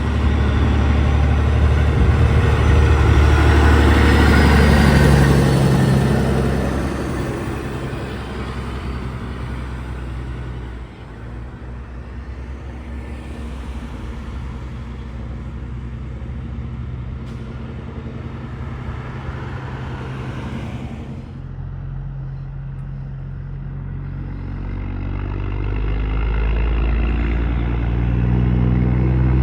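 Heavy diesel trucks passing on a road. A big engine's low drone is loudest a few seconds in and fades away, road noise carries on, and another engine grows louder near the end.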